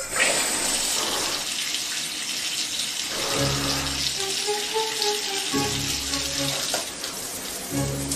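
Shower spray running steadily, an even hiss of falling water. About three seconds in, music with deep held bass notes and a simple melody comes in over it.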